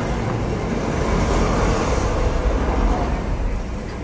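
Loud, dense rumbling wash of sound from a nighttime fountain, laser and fireworks show, heaviest in the deep bass. It swells a second or two in and eases off near the end, with no single distinct bang.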